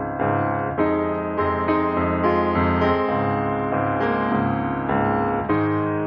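Background piano music: a calm melody with notes struck about twice a second.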